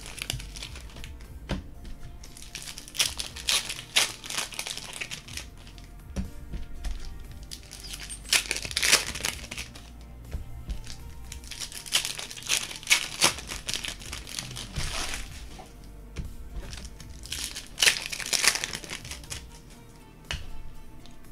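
Trading-card pack wrappers crinkling and tearing as packs are ripped open, in repeated crackly bursts every second or two, with music playing in the background.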